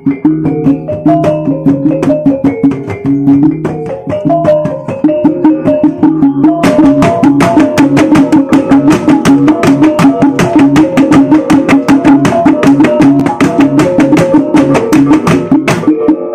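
Bajau bertitik gong music: a kulintangan, a row of small bossed gongs struck with wooden sticks, plays a fast ringing melody while two gendang hand drums beat along. About six to seven seconds in, the strokes become much denser and louder.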